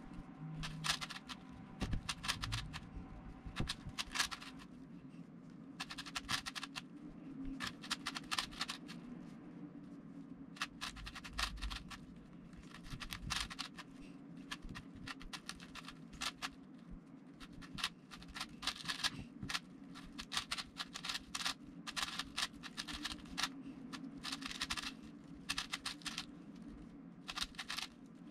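Plastic puzzle cube being solved by hand: runs of quick clicking and scraping as its layers are twisted, broken by short pauses.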